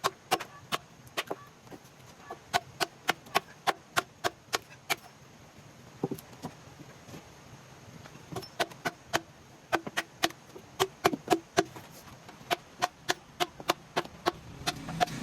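Wood being struck by hand in quick runs of sharp knocks, about three a second, broken by short pauses, as in chopping or carving.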